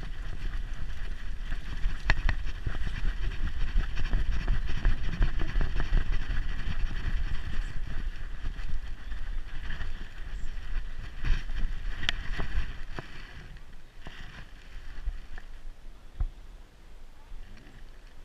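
Rumbling, rubbing handling noise from a GoPro strapped to a dog's back as she moves, with scattered clicks and a steady hiss over it; it eases off after about thirteen seconds.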